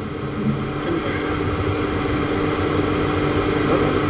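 Steady hum and hiss of the hall's background noise, with one faint steady tone held over it.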